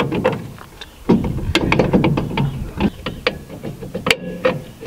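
Hands and tools working at the rear drum brake hub of a VW Rabbit pickup: a quick run of sharp clicks and knocks as the hub nut and drum are handled.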